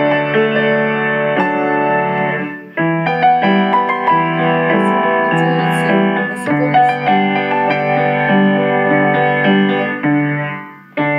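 Piano or keyboard music with held chords that change every second or so, and two short breaks in the sound, just under 3 s in and near the end.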